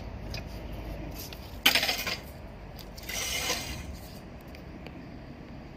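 Metallic clatter of small metal parts clinking together: one sharp burst about one and a half seconds in, then a shorter, hissier rattle about a second later.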